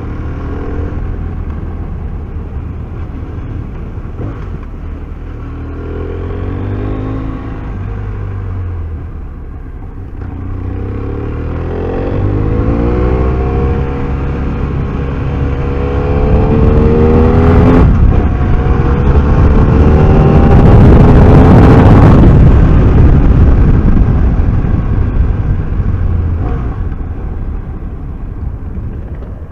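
BMW F800R parallel-twin engine under way, accelerating hard in a series of rising sweeps as it climbs through the gears. A loud rushing noise peaks just after the middle, then the engine eases off near the end.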